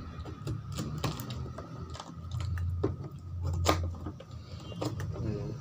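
Chewing a mouthful of crunchy pomegranate seeds: irregular crisp crunches and clicks, with one sharper crunch a little before four seconds in.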